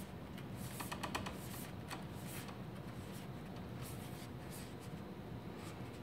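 Gloved hands bending the cut edge of an aluminum fascia sheet over into a hem: faint scattered metallic crinkles and scrapes, a quick cluster about a second in, over a steady low hum.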